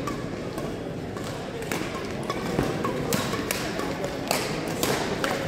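Badminton racquets striking shuttlecocks on several courts in a large sports hall: sharp, irregular taps a fraction of a second to a second apart, over a background of distant voices.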